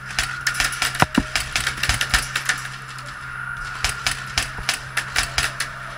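Airsoft gunfire in a plywood arena: a rapid, irregular run of sharp clicks and snaps from shots and BBs striking the wooden walls, in two bursts about a second apart.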